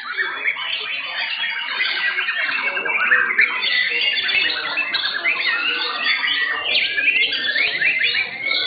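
Several caged white-rumped shamas (murai batu) singing over one another: a dense, unbroken tangle of fast whistles, chirps and rapid trills.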